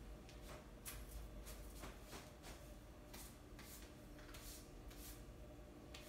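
Faint, irregular scratching and rustling of hands working through long curly hair and pinning it up: about a dozen soft strokes over a low hum.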